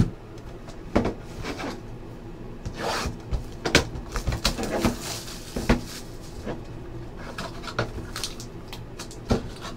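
Small cardboard trading-card hobby boxes being handled and opened on a table: irregular knocks, clicks and scrapes, with a longer rustle of cardboard about five seconds in.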